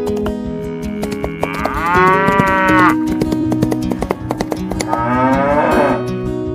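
A cow mooing twice, each call lasting about a second, over background acoustic guitar music.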